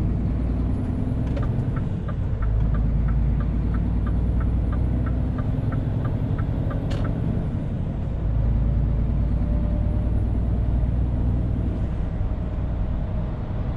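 Scania R450 truck's 13-litre inline-six diesel running under way, heard from inside the cab. For about five seconds early on there is an even ticking, roughly three ticks a second, then a sharp click, and from about eight seconds in the engine pulls harder and louder.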